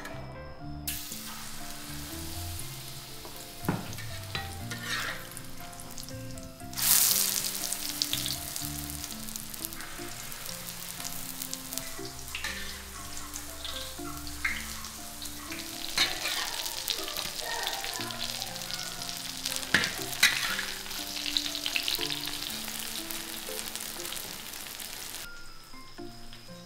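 Luffa-and-flour batter pancakes frying in hot oil in a pan. The sizzle turns suddenly much louder about seven seconds in and cuts off shortly before the end. Scattered clicks and scrapes of a utensil in the pan come through it, over quiet background music.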